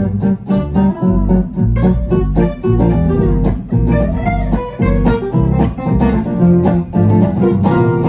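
A gypsy jazz trio plays a swing tune: two Selmer-style acoustic guitars strumming and picking over a double bass, with an even, steady strum rhythm.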